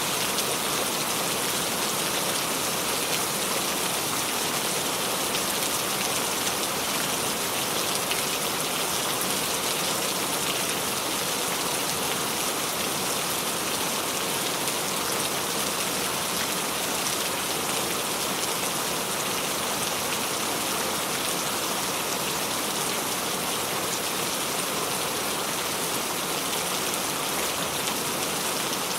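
Steady rain falling on a surface, an even patter with no thunder or distinct drops standing out.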